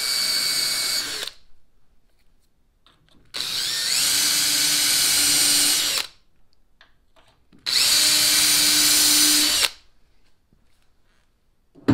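Cordless drill with a self-centering bit boring pilot holes for a rod holder's mounting screws into PVC decking, in three separate runs of about two seconds each at a steady speed.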